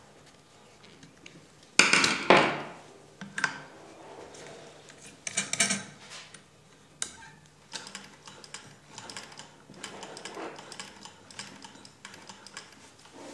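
Clinks and clicks of metal parts being handled on an antique Singer sewing machine head: a few louder knocks in the first six seconds, then a run of quick, light clicks.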